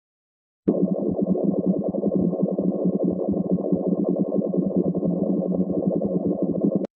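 Bubbling sound effect: a dense, rapid, irregular blub-blub of bubbles welling up and overflowing, low and full. It starts abruptly under a second in and cuts off just before the end.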